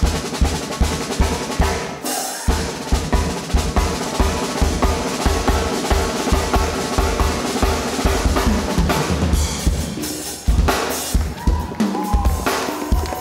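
Loud dance music driven by a drum beat of steady kick and snare, with short breaks in the beat about two seconds in and again about ten seconds in.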